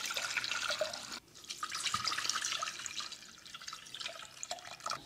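Water poured from a glass jug into a stainless steel saucepan, splashing onto hawthorn berries and leaves to cover them for boiling. Two pours, with a short break about a second in; the second thins out near the end.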